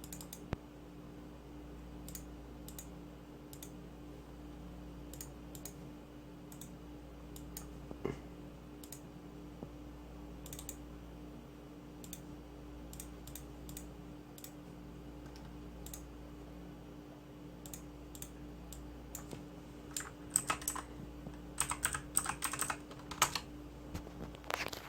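Computer keyboard keys pressed one at a time every second or so, then a quick run of typing in the last few seconds, over a steady low hum.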